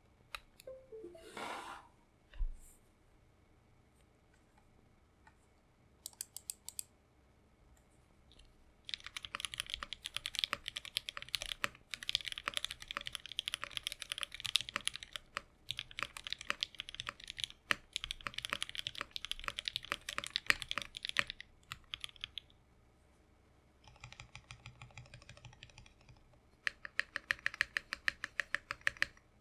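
Typing on an Iron 165 R2 gasket-mount 65% custom mechanical keyboard with lubed, filmed H1 switches, an FR4 plate and GMK keycaps. A few scattered keystrokes come first, then fast continuous typing in several runs broken by short pauses. A quieter stretch of typing comes about two-thirds of the way in.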